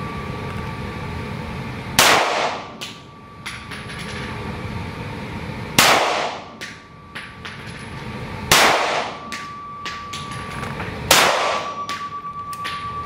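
Four single shots from a Heckler & Koch P30L pistol, a few seconds apart, each sharp crack ringing out in the echo of the indoor range.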